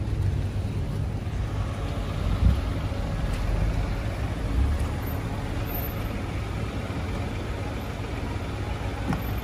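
A car's engine running with a steady low rumble, with a single thump about two and a half seconds in.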